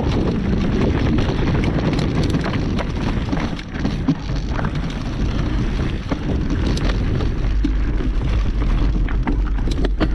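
Wind buffeting the camera's microphone, a steady low rumble, with scattered sharp clicks and knocks throughout.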